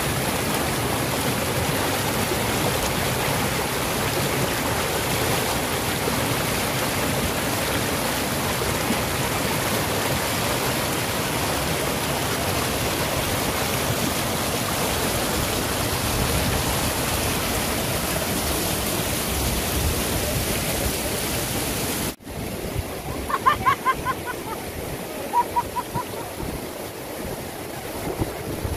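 Rushing water of a rocky river's rapids and falls, a loud, steady rush. About three-quarters of the way through it cuts to a quieter stream background with a few brief voices.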